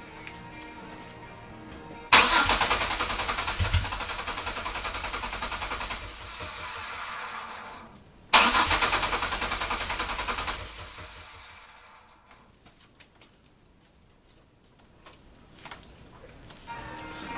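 3.4 L V6 being cranked by its starter twice, first for about four seconds, then for about two, the engine fed only by gasoline poured into the intake with no fuel pump connected. Neither attempt settles into a steady idle; the second tapers off and stops.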